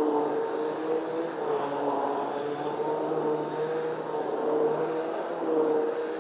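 Electric hand blender running in a pot of thick cooked lentils and grains, mashing them to a smooth paste for haleem. Its motor hum holds steady, its pitch shifting a little now and then as the load changes.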